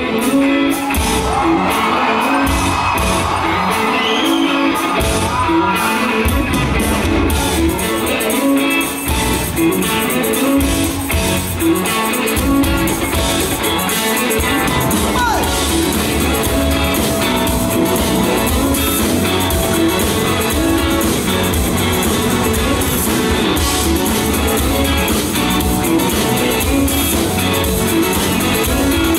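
Live band playing a song with electric guitar and a steady beat, heard from the audience, with cheering from the crowd over the first few seconds.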